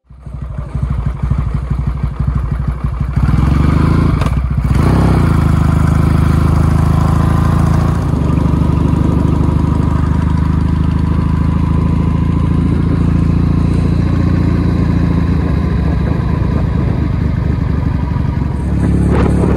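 Motorcycle engine running as the bike is ridden, heard from the rider's seat: uneven for the first few seconds, then a steady drone, with a brief break in the engine note about four seconds in.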